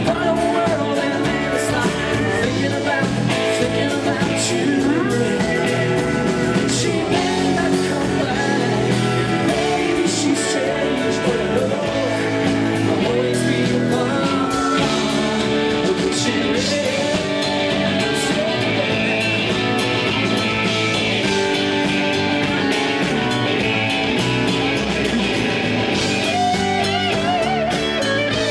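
Country-rock band playing live: electric guitars, bass guitar and drums, with a bending melody line over the top that turns into a lead electric guitar with wavering bends near the end.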